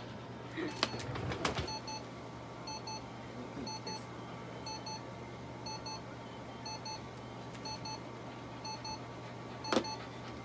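Electronic alarm beeping in quick pairs, about one pair a second, over a steady low hum. A few sharp knocks about a second in and one near the end.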